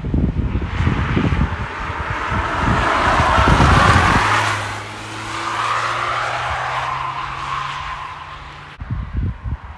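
A camouflaged prototype test car passing through a bend, its engine and tyre noise swelling to a peak about four seconds in and then fading, with wind buffeting the microphone. A steady low hum follows, then the wind gusts return after a sudden cut near the end.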